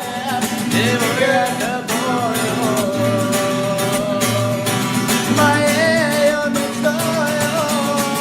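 A pop song playing: a solo singing voice with vibrato over guitar and a steady beat.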